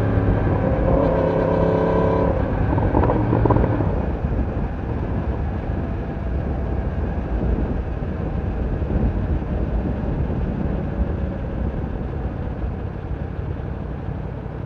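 Yamaha YZF-R1 inline-four engine pulling at steady revs for the first few seconds, then rolled off the throttle about four seconds in. After that its clear note gives way to an even rush of engine, wind and road noise that slowly fades as the bike slows.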